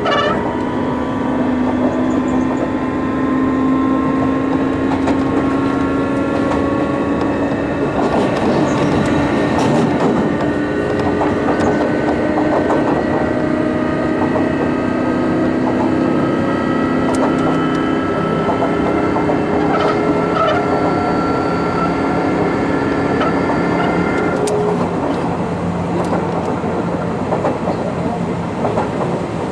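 Hitachi GTO-thyristor VVVF inverter and traction motors of a Sotetsu New 7000 series train whining in several tones, which climb slowly as the train accelerates and then hold, heard from inside the car. The wheels click over rail joints, and the inverter tones cut off about 24 seconds in as power is shut off.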